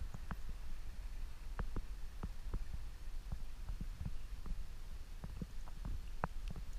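Outdoor ambience: a steady low rumble with short, irregular faint clicks and ticks scattered throughout.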